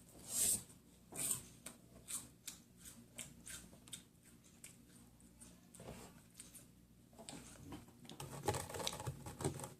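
Crisp wafer biscuits being bitten and chewed close to the microphone. Two sharp bites come about half a second and a second and a quarter in, then a run of crunching chews that grows busier near the end.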